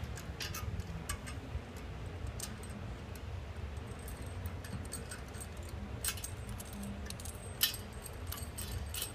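Light, scattered metallic clicks and clinks as a nut is threaded by hand onto a toilet tank bolt under the porcelain tank. A few louder clicks come about six and seven and a half seconds in.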